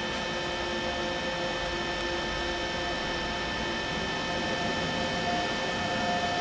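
Electric train on an overhead-wire line, its traction and cooling equipment giving a steady hum and whine of several held tones that grows a little louder near the end.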